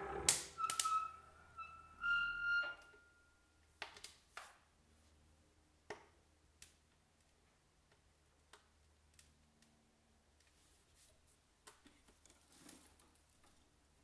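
Quadra-Fire wood stove insert's door swung shut and latched: metal clacks with two short squeaks in the first few seconds, then scattered pops and crackles from the wood fire burning behind the glass.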